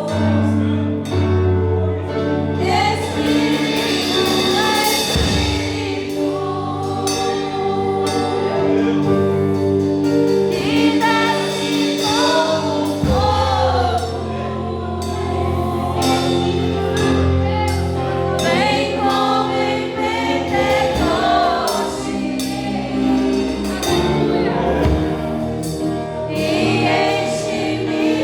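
Church worship team singing a gospel hymn in Portuguese as a group of voices, over steady instrumental backing with sustained bass notes.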